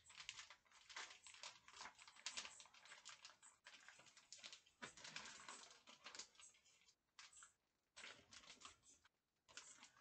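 Faint crinkling and clicking of plastic packaging being handled, a quick irregular crackle that stops and starts a few times in the second half.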